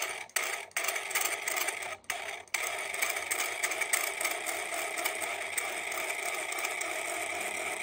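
Floppy disk drive reading a dirty 3.5-inch disk, making a grinding noise: a few short rough bursts, then from about two and a half seconds in a steady continuous grind. The drive cannot spin the disk at a constant speed, and the noise is probably dirt scratching the disk's surface.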